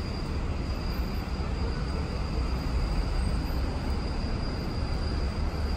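Steady city street noise from road traffic, with a deep, fluctuating rumble and a thin, steady high whine throughout.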